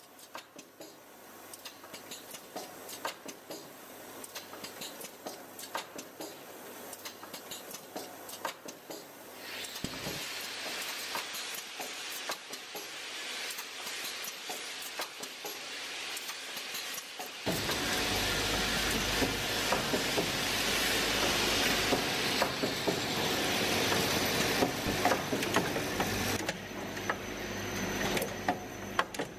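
Vibratory bowl feeder running with a steady low hum while small clip parts rattle and click along its track. About ten seconds in a steady hiss joins, and past the middle the machine noise grows louder and fuller, with the clicking going on throughout.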